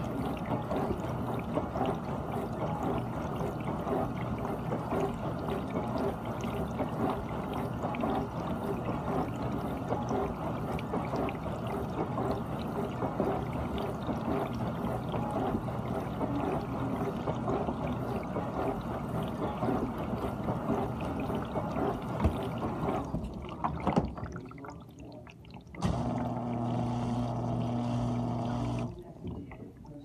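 GE dishwasher washing: water spraying and sloshing inside the tub. About 23 s in the spray dies away, and a couple of seconds later a steady low pump-motor hum starts, breaking off briefly near the end.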